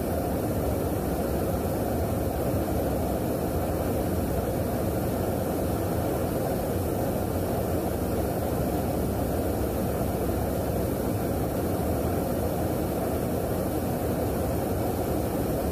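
Steady, unchanging noise of air and jet engines heard from inside a KC-135 tanker's boom station in flight, with most of the sound low in pitch.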